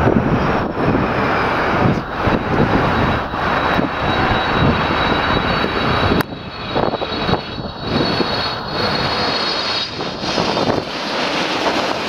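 Boeing 787-8 Dreamliner jet engines on final approach passing low overhead: a steady, loud rush of jet noise with a high whine over it. About six seconds in the sound breaks off abruptly and picks up again with another approaching 787.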